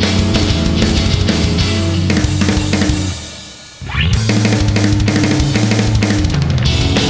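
Loud band music with a full drum kit and bass. About three seconds in it drops briefly into a quieter break that ends in a rising sweep, and then the full band comes back in.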